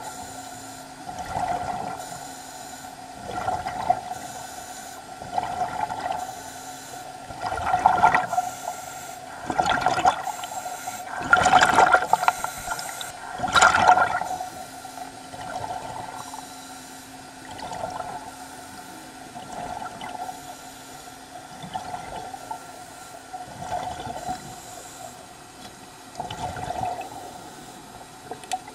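Underwater diver breathing through his breathing apparatus: a bubbling rush of air swelling and fading about every two seconds, over a steady hum.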